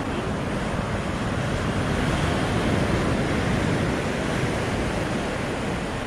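Ocean surf washing onto a sandy beach: a steady rush of noise that swells a little around the middle.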